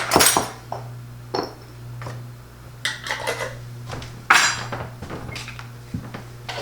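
Metal spoon and small saucepan clinking and scraping as sugar is spooned into a sour cream and mustard sauce, with a handful of separate knocks, the loudest near the start and about four seconds in.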